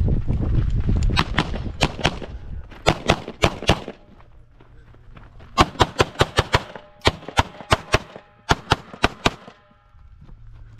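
Pistol fired in quick strings at steel targets, about two dozen shots with the fastest run in the second half, and faint ringing from the struck steel plates between shots.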